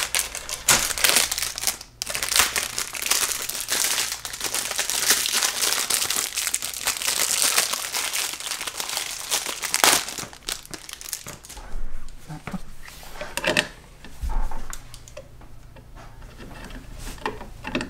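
Packaging of a light switch plate crinkling and tearing as it is unwrapped by hand. The crinkling is dense for about ten seconds, then thins to scattered clicks and handling noise.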